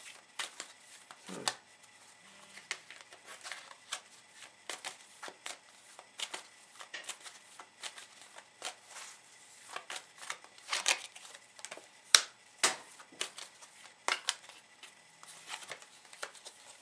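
A tarot deck being shuffled in the hands: a long, irregular run of soft card snaps and slides.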